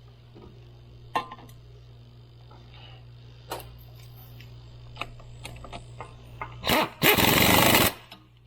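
A power tool runs down a bolt for about a second near the end, just after a short burst. Before it come scattered clicks and clinks of tools and parts over a steady low hum.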